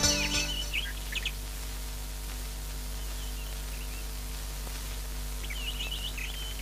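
Small birds chirping: a few quick high chirps near the start and another run of chirps near the end, over a steady low hum.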